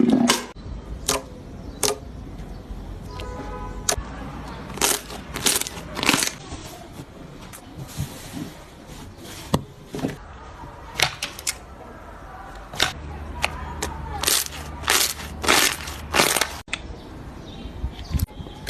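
Slime being pressed and squeezed, giving irregular sharp crackling pops and clicks, some in quick clusters.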